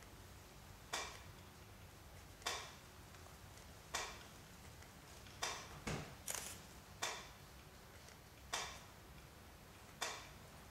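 Sharp ticking knocks repeating evenly about every one and a half seconds, each with a short ringing decay, with a couple of extra knocks and a lower thump around six seconds in.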